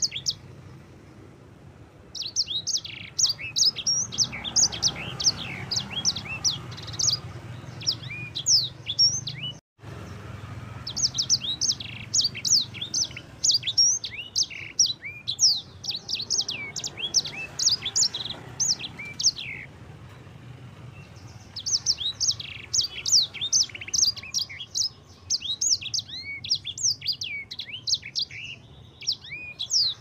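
Caged sanger finch singing: long, fast phrases of high chirps and trills, broken by short pauses about ten and twenty seconds in.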